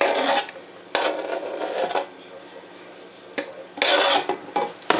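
Chopped peach pieces scraped off a cutting board and dropping into a glass measuring cup: three bursts of scraping and clatter with a few sharp clicks.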